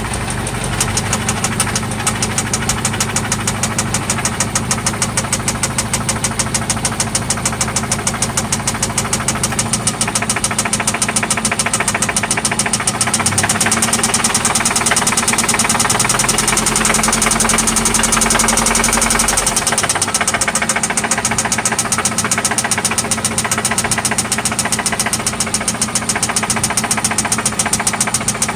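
1995 Toyota Celica ST's four-cylinder engine running at idle with a fast, steady, even knock in time with the engine. The knock remains after an oil change and new spark plugs.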